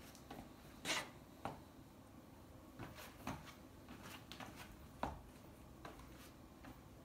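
Footsteps of Nike Canyon sandals on a laminate floor: irregular soft taps and scuffs as the wearer steps and turns, the sharpest about a second in.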